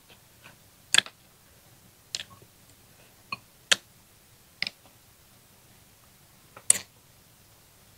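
A person eating from a glass bowl of rice with wooden chopsticks: scattered sharp clicks of chopsticks against the glass, with mouth sounds of chewing, picked up close by a clip-on microphone.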